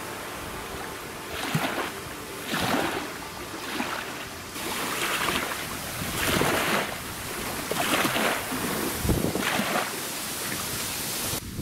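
Small waves from choppy river water splashing and washing against a muddy bank, a swell coming about once a second, with wind noise throughout.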